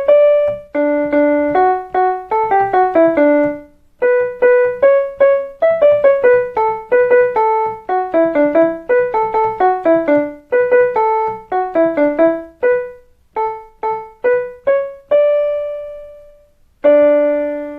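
Electronic keyboard on a piano sound playing a quick melody one note at a time. Near the end it slows to a held note, then strikes a closing chord that rings out.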